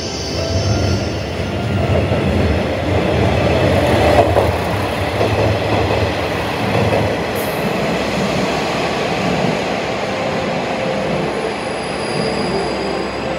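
Electric train running past close to a station platform, its wheels and running gear rumbling, loudest about four seconds in, with a faint high wheel squeal near the end.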